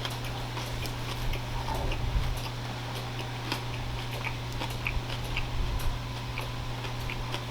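A person chewing food close to the microphone, with scattered small crunches and mouth clicks over a steady low hum.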